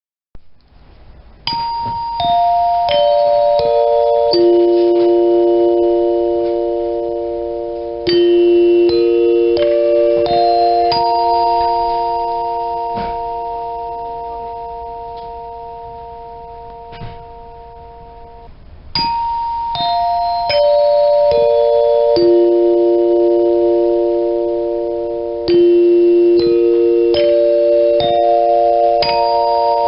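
A five-note dinner chime struck note by note, each tone ringing on and overlapping the next. It plays four runs: down the scale, up, down again, and up again. A few light knocks fall between the runs.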